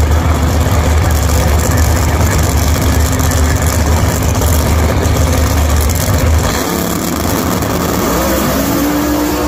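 Two Pro Stock drag cars' naturally aspirated 400-cubic-inch V8s running loudly at the start line while staging. The deep engine note eases about two-thirds of the way in, and a rising engine tone comes in near the end.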